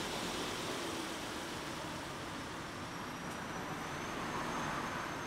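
Car driving along, a steady mix of engine and road noise, with a faint high whine coming in about halfway through.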